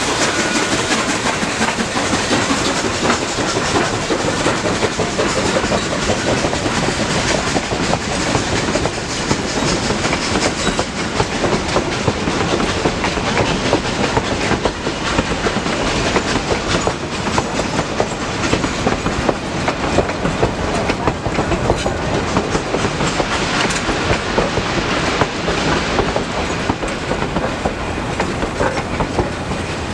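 Durango & Silverton narrow-gauge train cars rolling along the track, the wheels clicking steadily over the rail joints amid continuous rumble.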